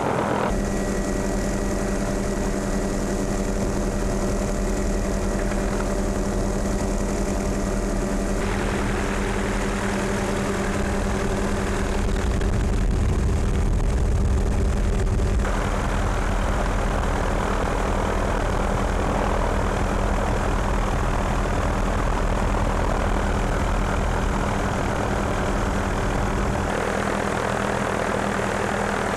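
Helicopter in flight: steady engine and rotor drone with a constant low hum. The tone changes abruptly a few times, as shots are cut together.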